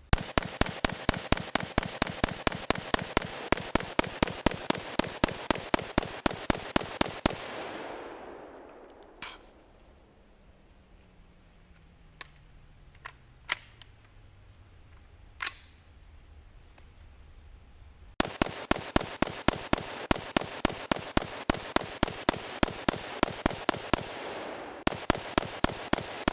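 Daniel Defense DDM4 AR-15-style rifle fired in rapid semi-automatic strings at about four shots a second, emptying magazines as fast as possible to heat the barrel nut and seat the new barrel for break-in. A string of about seven seconds is followed by a pause of about ten seconds with a few isolated clicks, then another rapid string with a brief break near the end.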